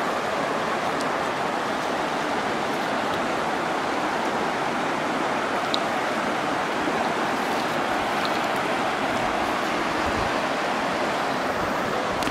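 Steady rush of river water pouring over rocky rapids.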